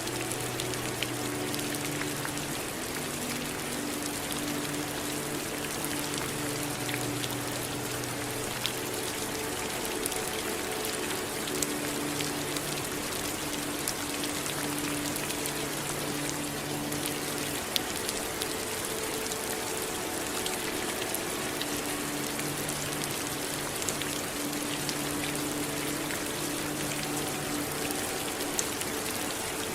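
Steady rain with individual drops ticking now and then. Beneath it runs a soft low sustained drone whose notes shift every few seconds.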